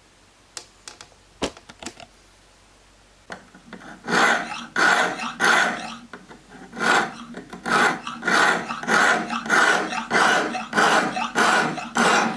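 A sharpening stone on a guided jig's rod is stroked back and forth along an N690 stainless steel knife blade: a rhythmic rasping scrape of about two strokes a second, starting about three seconds in after a few light clicks.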